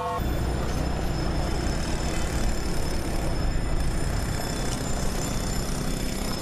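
Steady low vehicle rumble with an even hiss over it, with no distinct events.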